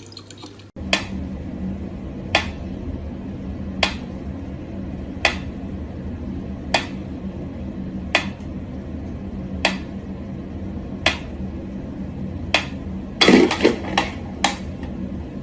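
Sharp, hard taps repeating evenly about every one and a half seconds over a steady low hum, with a short, louder clatter and two quicker taps near the end.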